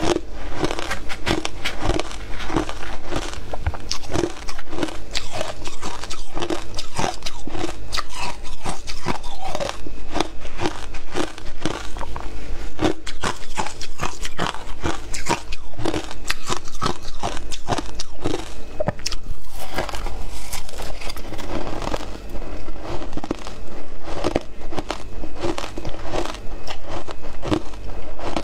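Ice chunks dusted with matcha powder being bitten and chewed: a dense, continuous run of crisp crunches.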